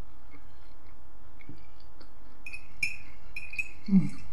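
Quiet eating sounds: a fork clicking and clinking against a glass bowl while twirling spaghetti, with a run of brighter clicks in the second half. A short low mouth sound comes near the end as the forkful reaches the mouth.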